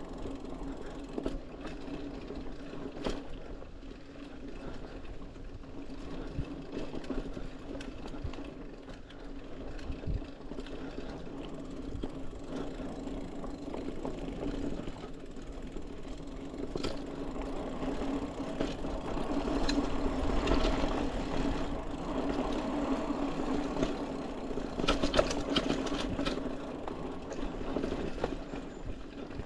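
Mountain bike rolling along a dirt forest trail: a steady hum from the moving bike, with clicks and rattles over bumps that get louder about twenty seconds in and again a few seconds later.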